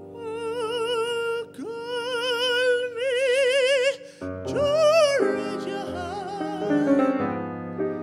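A singer holding long, slow notes with wide vibrato over grand piano accompaniment. A louder, higher note comes about five seconds in, and the piano's chords come forward near the end.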